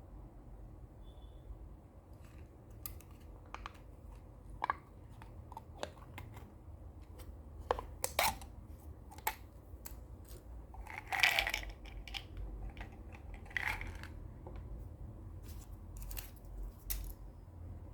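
Irregular clicks, taps and short rustling or scraping noises, like small objects being handled, over a low steady hum. The loudest is a longer rustle about eleven seconds in, with another about two seconds later.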